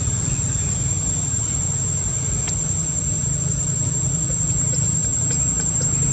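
Steady outdoor ambience: a low, even rumble with a continuous high-pitched insect drone over it, and a faint click or two.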